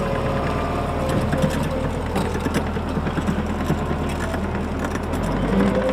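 Skid steer's engine running steadily, with scattered knocks and clatter over it. Music comes in near the end.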